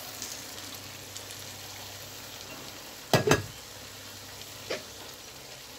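Chicken, sliced onion and fresh herbs sizzling as they fry in oil in a pot: a steady hiss. A sharp knock against the pot about three seconds in, and a lighter one near the end.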